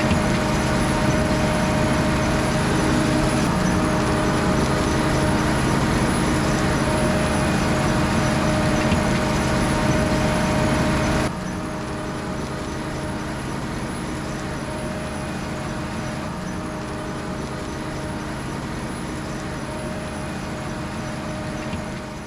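Potato harvester and tractor machinery running steadily, a dense mechanical noise with a constant whine through it. It drops abruptly to a quieter level about halfway through, then fades away at the very end.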